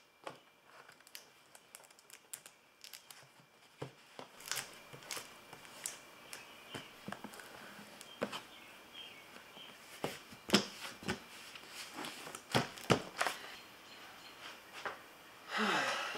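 Plastic storage bins being handled as they are closed and labelled: lids pressed shut and tape torn and stuck on, giving scattered sharp clicks, taps and crinkles. A brief breathy rush near the end.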